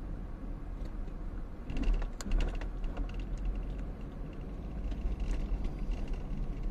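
A car driving, heard from inside the cabin: steady low engine and road rumble, with a burst of clicking and rattling about two seconds in and lighter ticks again near the end.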